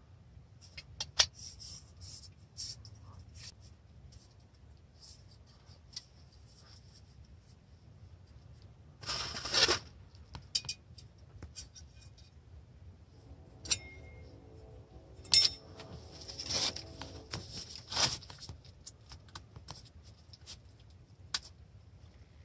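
Small metal camp cookware being handled: scattered clicks, clinks and scrapes as a folding titanium stove is set out and a water pitcher is placed on it, with a short rustle about nine seconds in.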